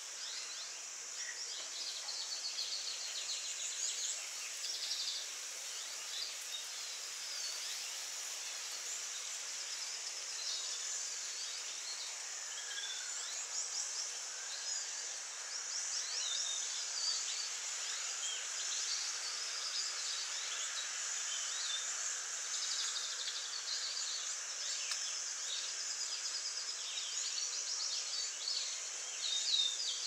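Outdoor backyard ambience: many short bird chirps, on and off throughout, over a steady background hiss.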